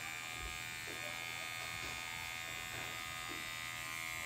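Electric pet clippers buzzing steadily while a dog's fur is trimmed.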